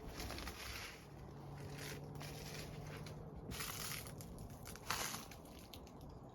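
Footsteps crunching on a rocky, gravelly trail: several uneven steps, the sharpest about five seconds in.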